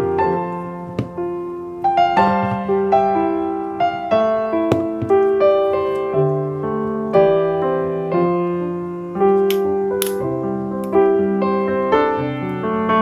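Background piano music: a melody of single notes, each struck and fading, over a lower bass line.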